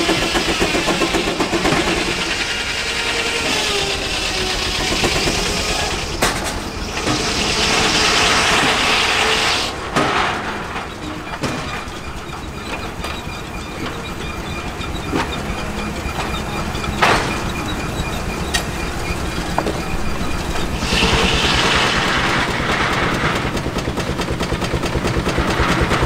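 Circular sawmill belt-driven by a steam traction engine, running, over the engine's steady rhythmic exhaust beat. The blade cuts through a log twice, about seven seconds in and again about twenty-one seconds in. A few sharp knocks come in between.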